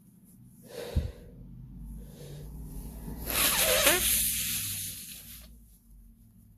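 A person sneezing: a loud, breathy, noisy burst with a voiced cry about three seconds in, tailing off over about two seconds. A brief sharp sound comes about a second in.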